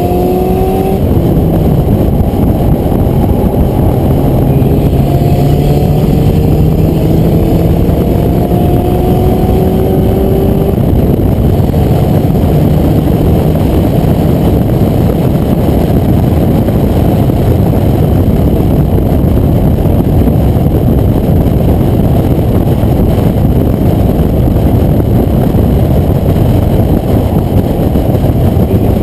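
Porsche 944 Turbo's turbocharged four-cylinder engine accelerating, its pitch climbing over the first ten seconds or so, with a shift near the start. After that, loud wind buffeting through the open driver's window at speed drowns the engine out.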